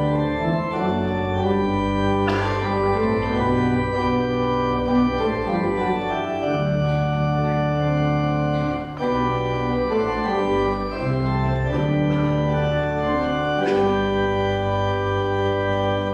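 Organ playing slow, held chords that change every few seconds.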